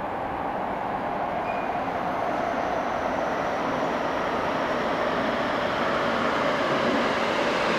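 Tsukuba Express train, set TX-2165, approaching an underground station platform through the tunnel: a steady rolling rumble of wheels and motors that grows gradually louder as it nears.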